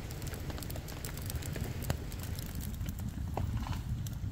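Irregular small ticks and pops over a low, steady rumble: light drizzle pattering on a camp tarp mixed with a wet campfire crackling.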